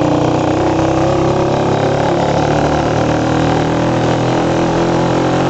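Small 125 cc motorcycle engine running steadily while riding, with wind rushing over the microphone.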